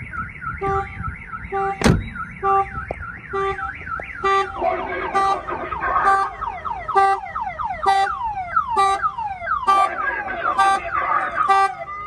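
Car alarm triggered by a door being opened: a sharp click, then the siren cycles through its tones. A fast up-and-down warble runs for about four seconds, then changes to rapidly repeated falling whoops, over a low tone pulsing about twice a second.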